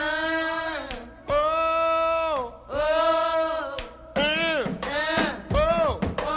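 Soul music with a singer's wordless vowels: three long held notes, then a run of shorter, quicker ones from about four seconds in.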